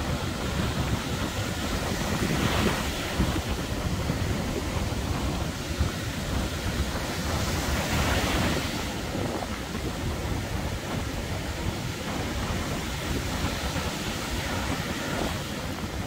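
Sea surf breaking on a sandy beach: a steady wash of waves, with louder breaks about two and a half seconds in and again about eight seconds in. Wind buffets the microphone underneath.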